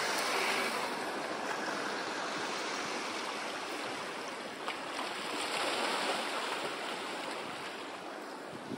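Sea waves washing on a shore: a steady rushing noise that swells about half a second in and again around five to six seconds in.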